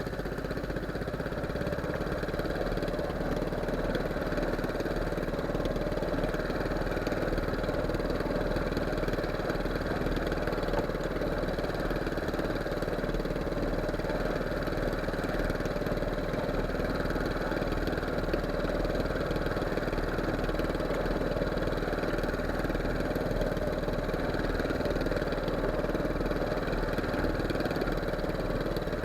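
A boat engine running steadily at an even speed.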